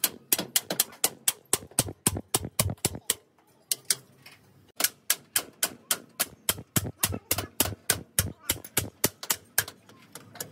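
Hammer striking steel at a truck's leaf spring hanger, a fast run of sharp blows about three a second, broken by a pause of about a second and a half about three seconds in.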